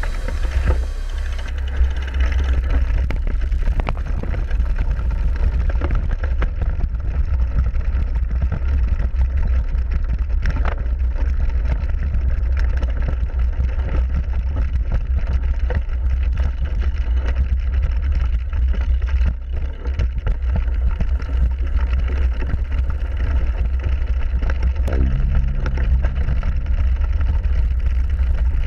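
Wind buffeting a handlebar-mounted camera's microphone while a cyclocross bike rides over bumpy grass and dirt, with a steady low rumble and frequent knocks and rattles from the frame and handlebars. A short low hum is heard near the end.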